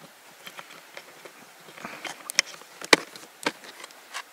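Orange plastic toolbox being handled and opened: scattered sharp plastic clicks and knocks from its latches and lid, the sharpest about three seconds in, with light rustling between them.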